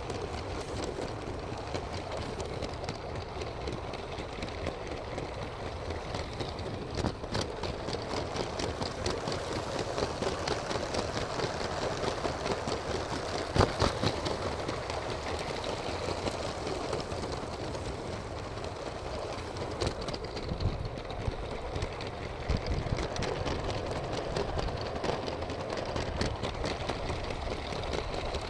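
Motorised LEGO train running on plastic track: a steady motor whir with many light clicks from the wheels and track, and one louder click about halfway through.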